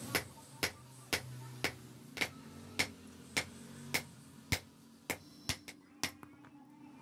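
Hand hammer striking a red-hot steel rod on a steel block anvil in steady blows, about two a second, with a couple of quicker blows near the end: hot forging of the rod into a spear head.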